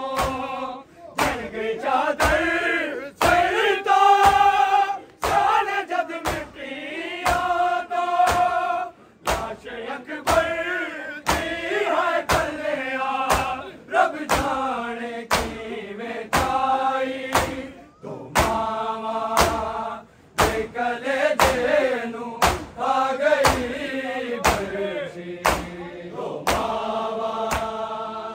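Men's voices chanting a Punjabi noha (lament) together, unaccompanied by instruments, over a steady beat of sharp slaps.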